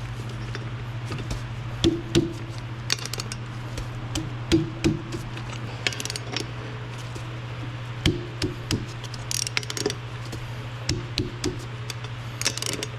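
Irregular knocks and clinks of hand tools and metal parts being handled, a few strikes at a time, over a steady low hum.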